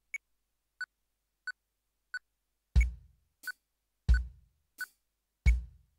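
Metronome count-in of four clicks at about one and a half clicks a second, the first click higher, from a Roland electronic drum kit's module. Then the electronic drums come in on the click: a heavy bass-drum thump on every other beat, with lighter, higher strokes in between.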